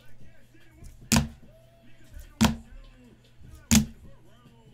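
Hard plastic trading-card cases knocking as each cased card is moved off the stack in turn: three sharp clacks about 1.3 seconds apart, over faint background music.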